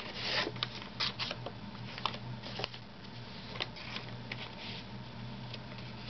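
Paper handling: a small brown paper bag in a handmade journal is opened and its contents touched, giving soft rustles and light, irregular clicks and crinkles, busiest at the start.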